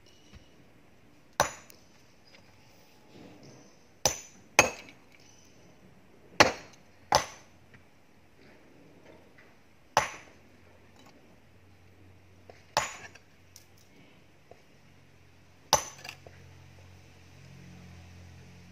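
Hard mountain rock being struck during hand quarrying: about eight sharp, ringing clinks of stone, a couple of seconds apart.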